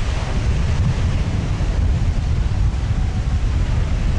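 Strong wind buffeting the microphone: a steady, loud low rumble.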